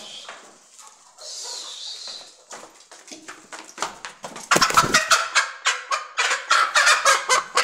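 Aseel chickens flapping their wings, with a fast, loud run of wingbeats, about six a second, in the second half.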